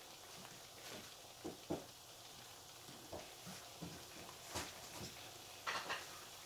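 Tomato sauce simmering in a pan beneath a heap of spaghetti: faint, irregular bubbling pops, with a short sputter near the end.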